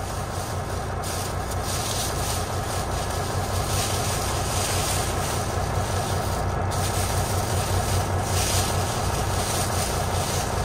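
Thin plastic seat cover crinkling and rustling in repeated handfuls as it is pulled off a new truck seat, over the steady low hum of the truck's engine idling.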